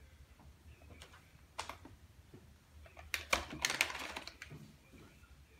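Foil cat-treat pouch crinkling as it is handled: a few scattered crackles, then a dense flurry of crinkling about three to four seconds in.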